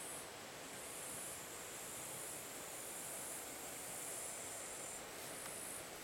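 Faint high-pitched insect chirring in repeated pulses, roughly one a second, over a steady soft hiss, typical of grasshoppers or bush crickets in summer grass.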